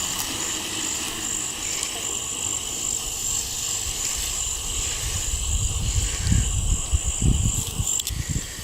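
Insects chirping in a steady, high-pitched pulsing chorus, with an irregular low rumble that builds from about five seconds in.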